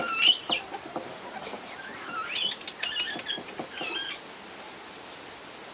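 Pet monkeys giving short, high-pitched squeaky calls that slide up and down in pitch. The loudest call comes right at the start, a cluster follows about two to three seconds in, and a last one comes about four seconds in.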